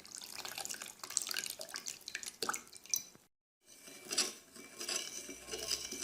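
Water being poured onto baking soda in a plate, splashing and dripping, then after a short break about three seconds in, light clinks of dishware.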